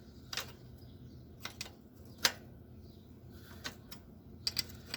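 A wrench working a bicycle's rear axle nut: a handful of short, sharp metal clicks and taps at irregular intervals, the loudest a little over two seconds in and a quick cluster near the end.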